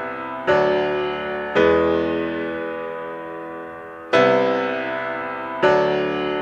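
Background music: slow piano chords, four in all, each struck and left to ring out before the next.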